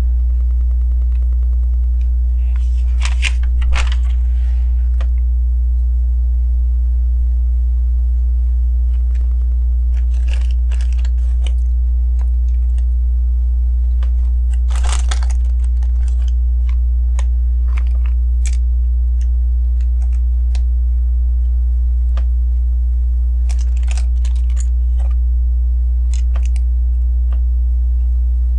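Plastic LEGO bricks clicking and rattling in short clusters as pieces are picked up and pressed together, a few seconds apart, over a loud, steady low hum.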